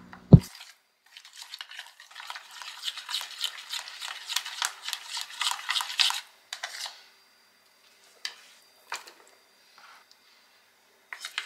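Metal spoon stirring a thick yogurt-and-spice marinade in a bowl: a sharp knock just after the start, then about six seconds of quick, wet scraping against the bowl, then only a few separate clinks near the end.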